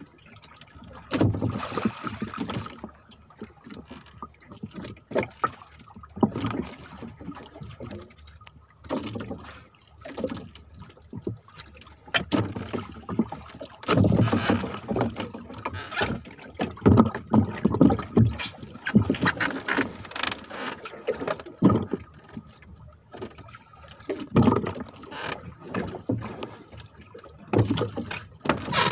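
Irregular knocks, rustles and splashy noises of a fisherman handling line and gear in a small wooden boat, with water lapping at the hull. The busiest, loudest stretch comes about halfway through.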